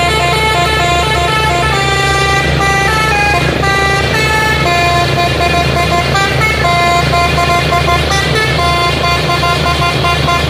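A musical multi-tone truck air horn playing a melody of held notes that step from pitch to pitch, over the steady low rumble of a truck engine.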